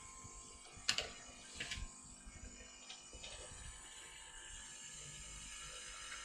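A sharp mechanical click about a second in, then a short rattle and two faint ticks, like small tools being handled, over a steady hiss.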